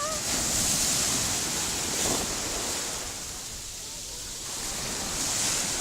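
Ocean surf: a wave breaking and washing up the beach, a steady rush that eases about three seconds in and builds again near the end.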